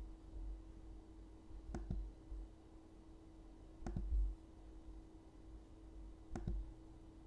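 Three separate clicks of a computer mouse, about two seconds apart, over a faint steady hum.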